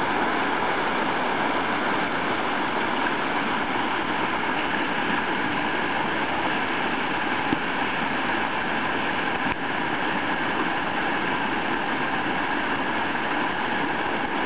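Steady rushing of whitewater pouring over a river standing wave, an even noise that holds without let-up.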